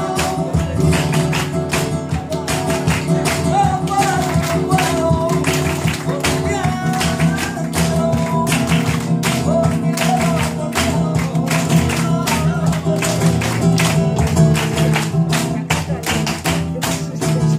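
Flamenco tangos: acoustic guitar played in a driving rhythm with sharp hand-clapping (palmas) on the beat, and a man singing at times.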